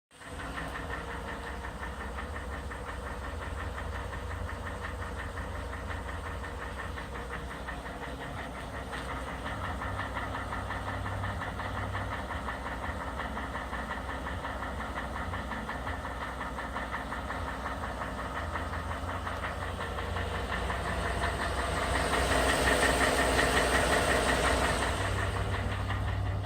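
Ford 5.0 L Coyote V8 in a 2011 F-150 running with a fast, steady knock, which the owner puts down to piston slap on the number 8 piston, a noise it has always made when cold. The sound grows louder for a few seconds near the end.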